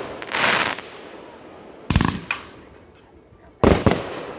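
Consumer fireworks going off: a hissing, crackling burst early on, then sharp bangs about two seconds in and again near the end, each a quick cluster of reports.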